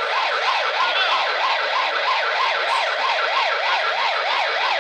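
Police car siren in fast yelp mode, its pitch sweeping up and down about four times a second without a break.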